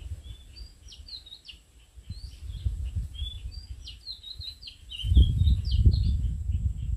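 Oriental magpie-robin singing a varied run of clear, rising and falling whistled phrases, over a faint even chirping about five times a second. A low rumble swells about five seconds in and is the loudest sound.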